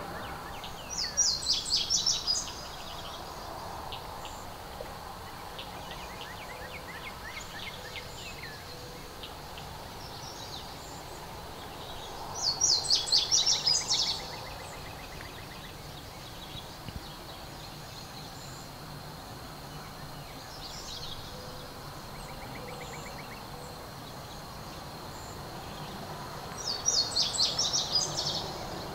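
A songbird singing a short, rapid, high-pitched phrase three times, about every thirteen seconds, with fainter calls of other birds in the background.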